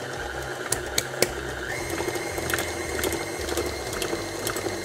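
KitchenAid tilt-head stand mixer running with a steady motor whine as it works flour into stiff sugar cookie dough. The whine steps up slightly in pitch about two seconds in, and a few sharp clicks come in the first second or so.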